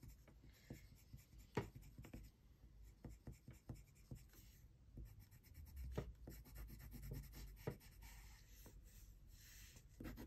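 Faint scratching of a colored pencil on paper, many short strokes in quick succession as line work is laid down to build texture.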